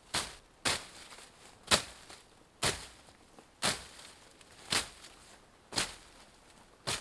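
Condor Bushcraft Parang, a 13-inch 1095 carbon-steel blade, slashing through bramble and ivy undergrowth: eight sharp cutting strokes, about one a second.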